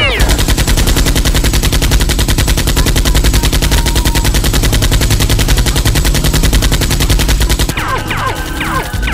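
Continuous rapid machine-gun fire, many shots a second without a pause: a gunfire sound effect standing in for the toy blasters. From about 8 seconds in, a run of short falling whistles sounds over the shots.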